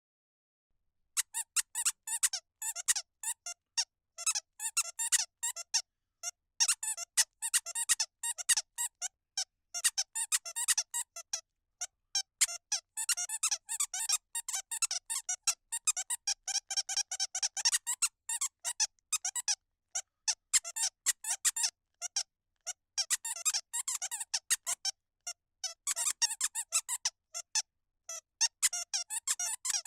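12-inch hound-dog squeaky toy squeezed over and over, giving quick runs of high squeaks with short pauses between them, starting about a second in.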